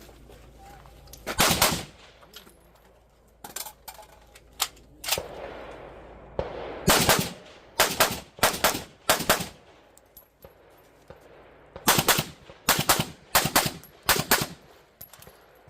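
Suppressed FN SCAR 16 SBR firing 5.56 mm rounds semi-automatically: a single shot, then two quick strings of about five shots each, with fainter cracks in between.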